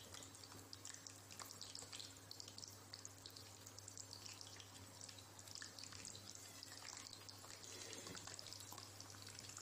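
Long brinjals (eggplants) par-frying in a pan of hot oil: a faint, steady bubbling with many small crackles.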